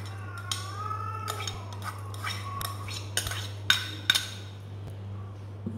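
Steel spoon clinking against a bowl as grated carrot is spooned in: several sharp clinks, the loudest two about three and a half and four seconds in, over a steady low hum.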